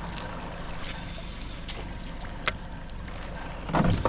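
A small fishing boat's motor runs steadily at low speed, with light water noise. There is one sharp click about two and a half seconds in and a brief louder sound near the end.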